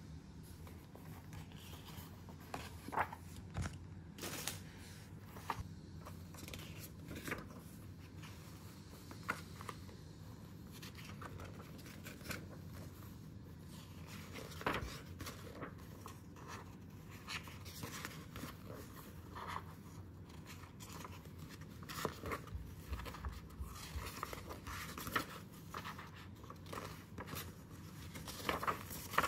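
Pages of a paper wall calendar being turned and handled, with irregular soft rustles and crinkles of paper every second or two.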